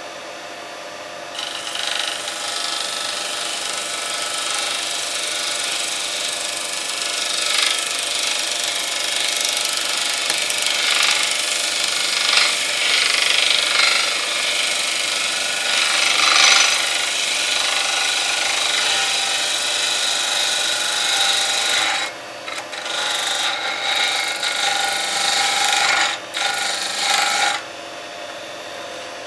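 A turning tool cutting shavings from a spinning Golden Cypress blank on a Record Power Coronet Herald wood lathe: a steady shaving hiss starts about a second in, breaks briefly a few times near the end, then stops just before the end. The lathe's motor hum runs underneath.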